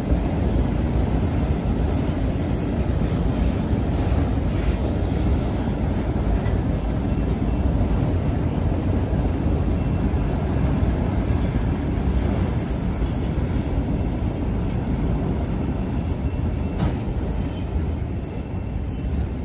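Union Pacific manifest freight train's autorack cars rolling past, a steady rumble of steel wheels on the rails that eases slightly near the end.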